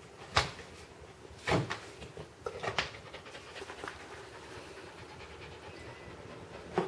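Siberian Husky puppy hiccuping after drinking water too fast: short, sharp hiccups, three about a second apart, then another after a pause of about four seconds.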